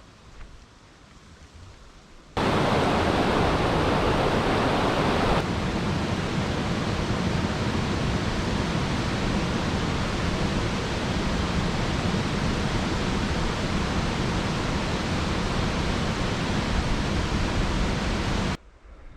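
Loud, steady rushing noise with no distinct tones or events. It starts abruptly a couple of seconds in, is loudest for the first few seconds, then holds steady and cuts off abruptly near the end.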